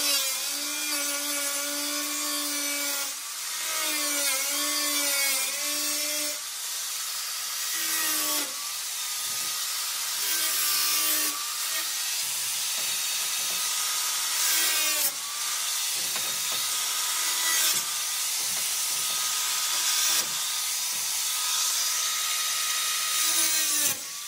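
Angle grinder with a cut-off wheel cutting through the steel rear fender of a VW Beetle, its motor whine dipping and rising under load. It breaks off abruptly and restarts several times.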